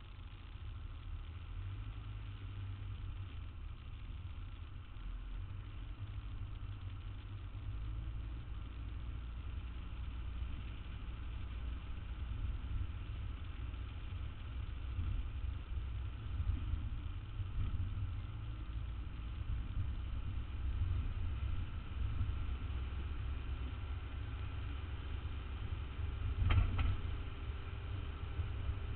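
Street traffic with a vehicle engine idling: a steady low rumble, and a single sharp knock about three seconds before the end.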